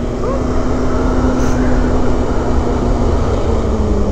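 Kawasaki ZX-14R's inline-four engine running at a steady cruise while riding, a constant hum over heavy wind rush, its note easing slightly near the end.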